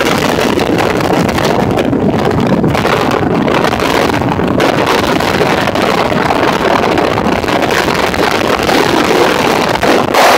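Motorboat underway at speed: a steady rush of wind buffeting the microphone and water along the hull, with the boat's engine running underneath.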